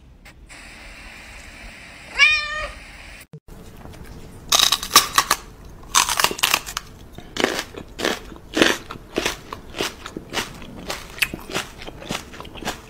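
A domestic cat gives one short warbling meow. Then comes a run of irregular sharp crunching clicks, a few a second, which are the loudest sounds.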